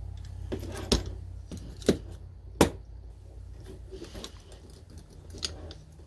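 Sharp metallic clicks and lighter clinks of door-lock hardware being handled as the latch unit is taken out of a commercial cylindrical knob set and the strike plate is picked up. Three loud clicks come in the first three seconds and one more a little before the end.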